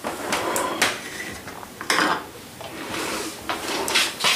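Irregular knocks and light clatter of dishes and cutlery being carried.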